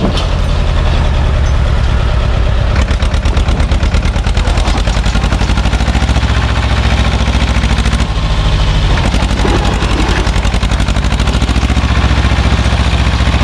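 Same tractor's diesel engine running steadily with a fast, even firing beat.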